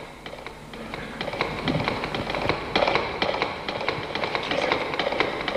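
Horse hoofbeats: a quick, steady run of hoof strikes that grows louder from about a second in, a rider approaching.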